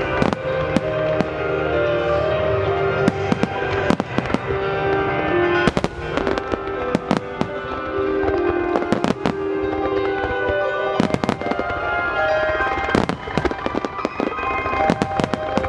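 Japanese star mine fireworks barrage by Nomura Hanabi Kogyo: rapid, irregular bangs of bursting shells, set to a melody of held notes that the fireworks are timed to.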